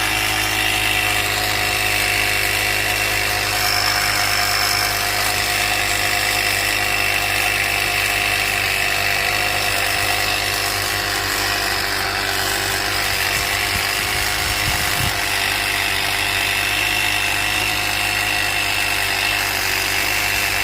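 Portable tyre air compressor running steadily and loudly, pumping air into a leaking car tyre.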